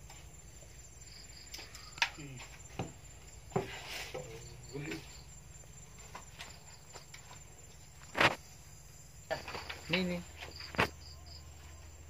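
Faint, high insect chirping like crickets, broken by several sharp knocks. The loudest knock comes about eight seconds in, with a few short low sounds between them.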